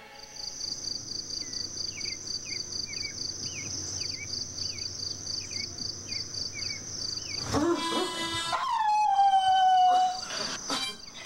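Summer yard ambience: a high, rapidly pulsing insect drone and a bird's short chirps repeating about twice a second. About two-thirds of the way in, a dog howls, one long howl slowly falling in pitch.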